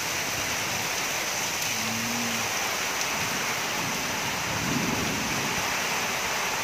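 Heavy rain pouring down in a steady hiss, with a short low rumble of thunder about five seconds in.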